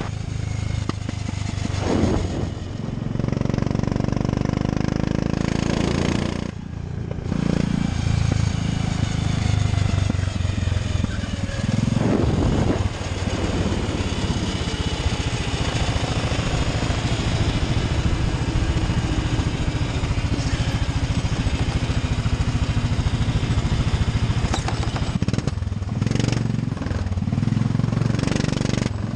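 13 hp go-kart engine heard from on board the kart, running steadily under throttle with brief lifts about 2, 7 and 12 seconds in. It turns lower and more uneven near the end as the kart slows.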